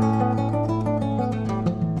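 Nylon-string classical guitar played solo: quick repeated plucked notes over held bass notes, with a change of chord at the start and another near the end.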